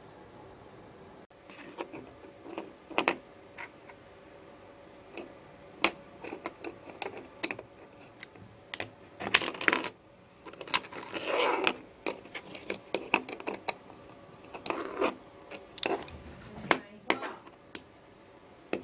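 LEGO bricks being handled and pressed together: a scattered string of short, sharp plastic clicks and rattles, with a longer clatter of about a second roughly eleven seconds in.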